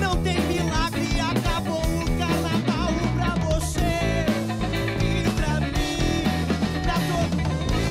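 Rock band playing live: a male lead vocal singing over electric guitar, electric bass and drums.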